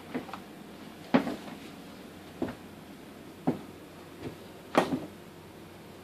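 A few short, sharp knocks and clicks of hands handling parts, about a second apart, the loudest about a second in and a quick double knock near the end.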